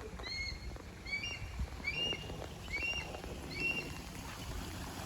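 A hawk calling five times in a row, short high calls that rise and fall, about one per second. The uploader identifies it as a red-tailed hawk. Under the calls, a small waterfall splashes steadily.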